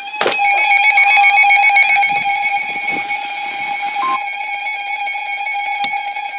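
Weather alert radio sounding its electronic alarm tone for an incoming warning: a loud, steady beeping tone with a stack of overtones, a second, slightly higher tone joining about four seconds in.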